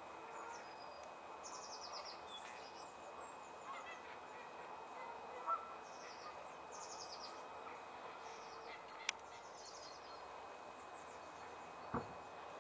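Small birds singing in repeated short, high trilled phrases, over a steady outdoor hiss. A louder, lower single call comes about halfway through, a sharp click follows, and a dull knock comes near the end.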